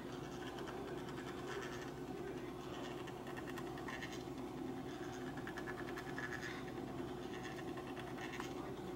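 1940s Allied Manufacturing Kit-Cat Klock running: its electric clock motor hums steadily under fine mechanical ticking, with a soft scraping swish every two seconds or so from the mechanism that rolls the eyes and wags the tail.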